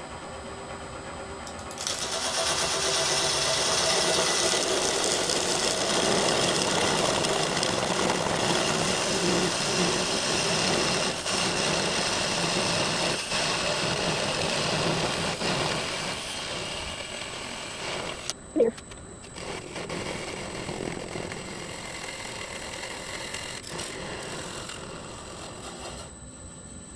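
Wood lathe running with a steady high whine while a turning tool cuts into the spinning walnut and epoxy blank, a loud, continuous scraping hiss that starts about two seconds in. About two-thirds of the way through there is one sharp knock. After that the cut goes on more lightly and fades near the end.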